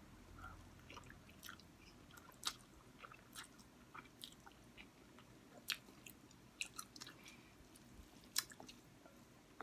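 A person chewing a mouthful of spicy instant noodles, close to the microphone: scattered short wet clicks and smacks, a few louder ones standing out against a quiet room.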